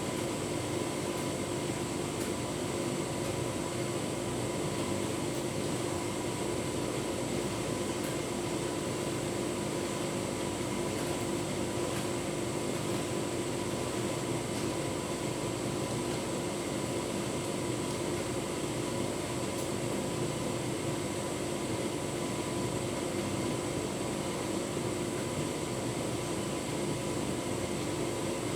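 Tumble dryer running with a full load of bedding: a steady motor and fan hum with the drum turning, at an even level throughout, with a few faint ticks.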